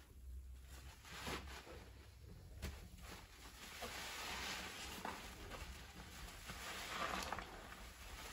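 Foam-soaked kitchen sponges squished by hand over a pot of soapy water: a soft, fizzing crackle of wet foam that grows louder a few seconds in, with a couple of light wet taps before it.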